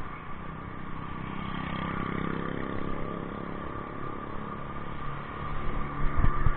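Motorcycle engine accelerating, its pitch rising from about a second in, then running steadily over road noise, with a few low thumps near the end.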